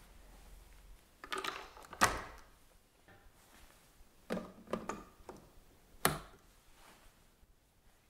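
Hard plastic clicks and knocks of a Dyson V8 post-filter being pushed onto the rear of the handheld vacuum and twisted into place. A sharp click comes about two seconds in, lighter clicks follow around the middle, and a last sharp click comes about six seconds in.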